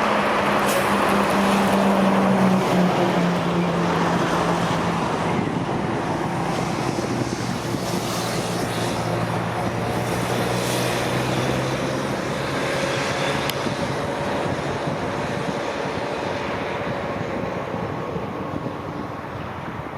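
Jet airliner's engines as it passes on landing: a broad rushing noise with low tones that drop in pitch two to three seconds in, then slowly fading.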